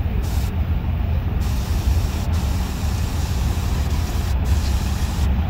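Allis-Chalmers farm tractor's engine running as it drives slowly past, under a steady rushing hiss.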